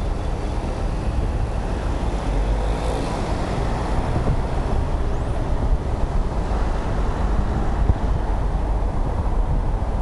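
Steady road and traffic noise heard from inside a moving car, with a low wind rumble on the microphone.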